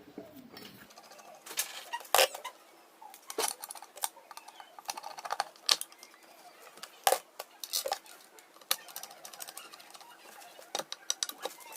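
Irregular light clicks and taps of small hard parts and tools being handled, about a dozen in all, some sharper than others.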